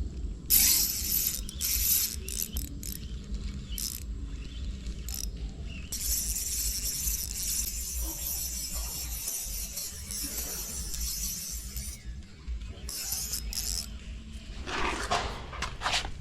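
Fishing reel ratcheting in runs: several short bursts in the first few seconds, then one long run of about six seconds and another short burst. A louder, rougher sound comes near the end, over a steady low rumble.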